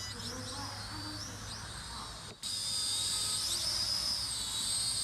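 Small toy drone's propeller motors whining at a high pitch that wavers up and down as the throttle changes. The sound cuts out briefly a little over two seconds in, then comes back louder.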